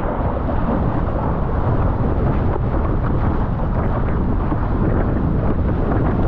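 Steady low rumble of strong, gusty wind buffeting a GoPro action camera's microphone while windsurfing, mixed with the rush of water around the board.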